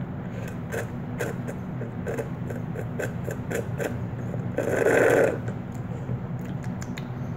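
A person drinking in big gulps, with short swallowing clicks about three a second, then one louder breathy sound about five seconds in as they come up for air.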